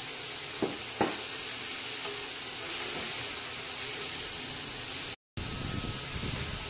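Sliced onions and tomatoes sizzling steadily in a stainless steel wok as they are stirred with wooden spatulas, with two sharp knocks of a spatula against the wok about a second in. The sound cuts out completely for a moment about five seconds in.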